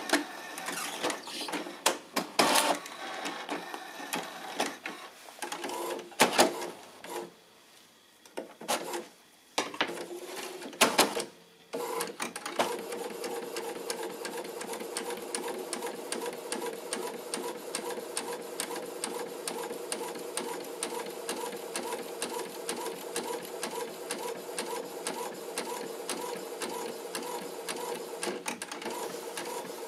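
Inkjet printer feeding paper and printing. For the first twelve seconds or so, irregular whirs and clicks of the paper feed with short pauses, then the print head shuttles back and forth in a steady, quick rhythm over a constant motor hum.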